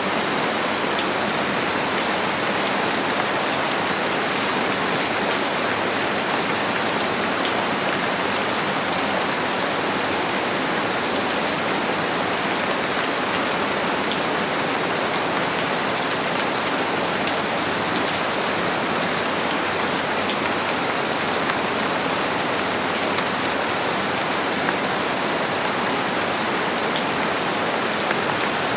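Steady heavy rain falling, a dense even hiss with many fine drop ticks throughout and no thunder.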